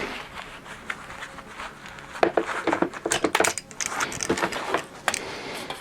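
Stainless steel sheet being worked back and forth in vise grips to break it by metal fatigue: irregular metallic clicks and clinks, busier and louder from about two seconds in.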